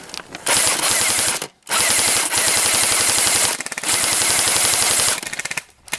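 Airsoft gun firing on full auto: three long rapid-fire bursts of fast, even clicks, the longest about two seconds, with short pauses between.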